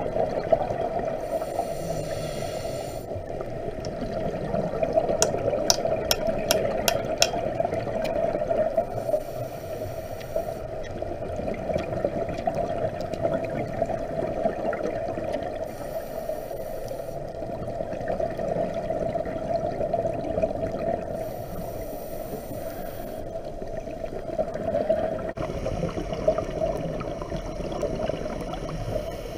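Scuba diver breathing through a regulator, heard underwater: a steady bubbly rush with a burst of hiss every five to six seconds as the breath cycles. A quick run of sharp clicks comes about five to seven seconds in.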